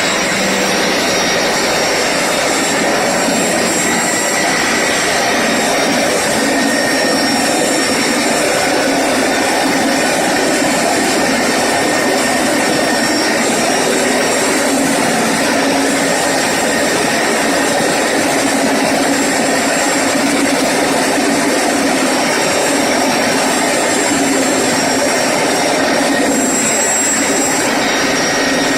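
Concrete core cutting machine running steadily, its electric motor driving the bit through concrete with a loud, even whine and grind.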